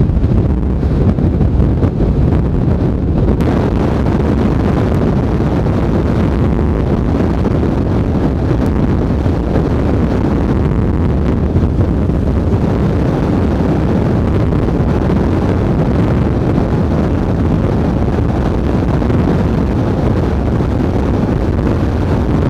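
Strong wind blowing across the microphone: a loud, steady roar with a deep rumble underneath.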